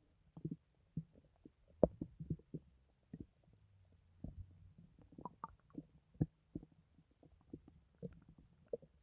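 Human stomach gurgling and bubbling: a sporadic string of short, irregular pops and gurgles, the sharpest about two seconds in and again near six seconds, with a faint low rumble around four to five seconds in.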